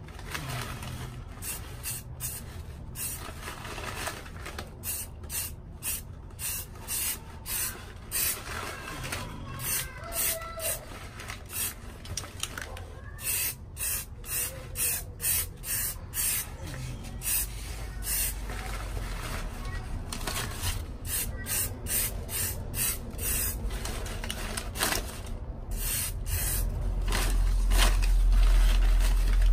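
Rust-Oleum aerosol spray paint can sprayed in many short hissing bursts, about one or two a second, as a clay pot is coated. A low rumble grows louder in the last few seconds.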